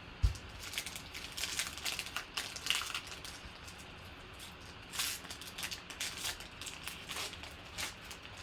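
Trading cards and pack wrappers being handled: irregular rustling, crinkling and light clicks, with a dull low thump just after the start.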